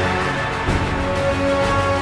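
Background music: a track of held notes over a steady beat.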